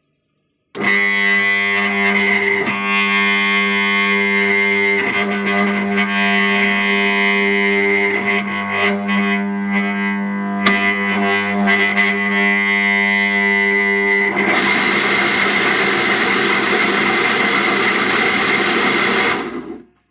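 Vikhr 1200/50 pumping station's electric motor humming loudly without turning for about thirteen seconds, with a click partway through, then suddenly starting and running for about five seconds before cutting off. The rotor sticks at start because its front bearing is worn, with very large play.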